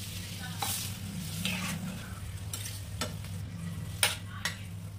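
A spatula stirring and scraping through a pan of paneer and vegetable curry, its gravy freshly thinned with water and sizzling. The spatula knocks sharply against the pan several times, loudest about four seconds in.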